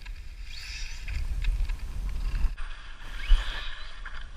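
Dual brushless electric motors of an RC car whining as it accelerates, the pitch rising and levelling off twice, over low wind rumble on the microphone. A low thump about three seconds in.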